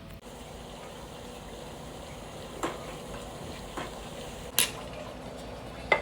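Kitchen stove hissing steadily while tea is being made, with four sharp clinks of metal pots or utensils; the loudest clink comes a little past the middle.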